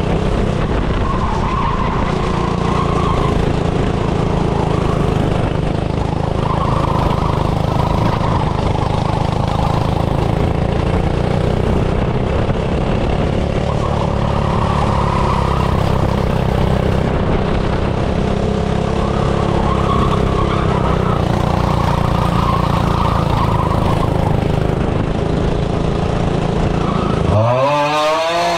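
Small go-kart engine running steadily under load. Near the end its note swoops up and down quickly.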